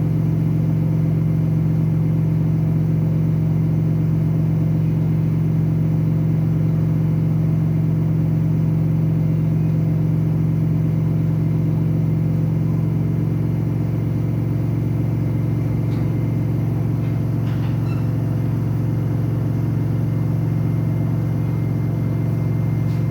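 Samsung washing machine spinning at high speed, a loud steady drum-and-motor hum. The owner finds it rather noisy and is unsure whether that much spin noise is normal.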